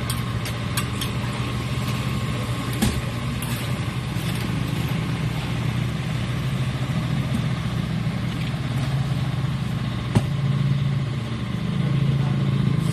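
A machine's engine running steadily, with a few sharp clicks and knocks, one about three seconds in and one near ten seconds; the engine grows a little louder near the end.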